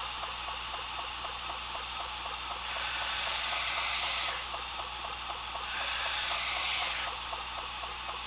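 Belt grinder running at reduced speed with a 100X Norax abrasive belt, a knife's edge held to it in sharpening passes: a steady grinding hiss with a regular light ticking, swelling louder twice for a second or two as the blade is pressed to the belt. The passes are pushing the edge's wire burr over to the other side.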